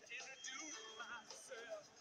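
Faint music with a man singing.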